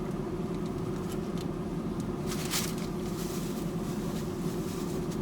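Steady low hum of a car heard from inside the cabin, with a brief rustle about two and a half seconds in.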